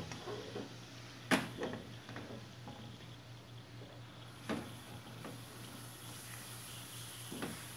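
Spatula stirring tuna being sautéed in its oil in a nonstick pot, with a light sizzle and three sharp knocks of the spatula against the pot: one about a second in, one midway, and one near the end.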